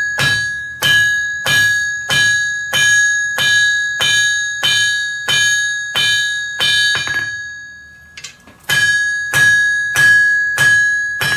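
Hammer blows on a red-hot steel bar on a blacksmith's anvil, about three every two seconds, each one leaving the anvil ringing with a clear high tone. The hammering stops briefly about seven seconds in, then starts again.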